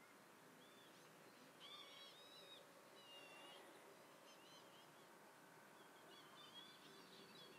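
Faint bird calls: short, high chirping notes in a few clusters, about a second and a half in, around three seconds in, and again near the end, over a low steady background hiss.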